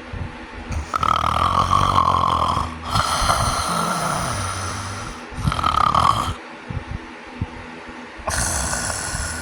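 A person snoring: a run of long snores close together, then a pause of about two seconds and another snore near the end. The uploader labels it sleep apnea snoring.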